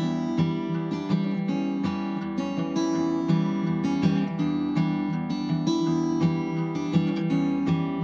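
Relaxing background music: an acoustic guitar strumming and plucking chords at a steady pace.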